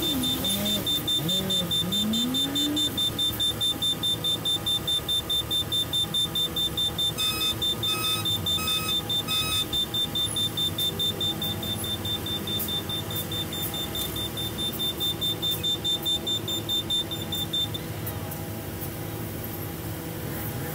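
Street noise at a traffic intersection: a vehicle engine running, with a rapid high-pitched electronic beeping that stops near the end. A second, lower beeping joins for a few seconds in the middle.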